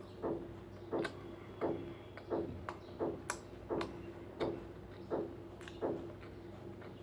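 Close-miked chewing of fried fish eggs and rice, a steady rhythm of about one and a half chews a second with an occasional crisp click, stopping near the end. A steady low hum runs underneath.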